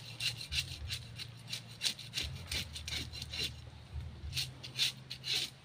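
Knife blade scraping the scales off a large fresh barracuda in quick, short strokes, about four a second, with a brief pause a little past halfway.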